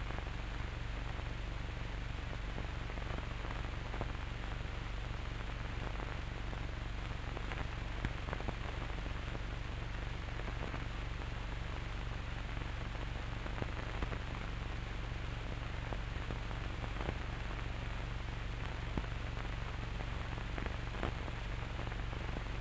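Steady hiss and low hum from an old cine film soundtrack, with faint scattered crackles and clicks.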